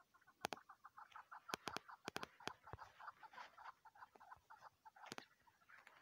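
Chukar partridge calling: a faint, rapid run of repeated clucking notes, with several sharp clicks in between.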